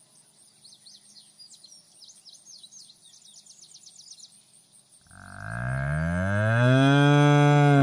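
A cow mooing once: one long, loud call that starts about five seconds in, rises a little in pitch and drops away at the end.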